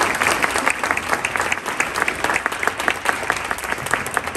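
An audience applauding: many hands clapping in a dense, steady patter that begins to thin near the end.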